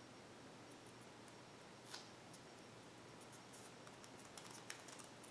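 Near silence, with faint clicks and crinkles of green tape being pressed around a turkey mouth call by hand: one small click about two seconds in and a scatter more near the end.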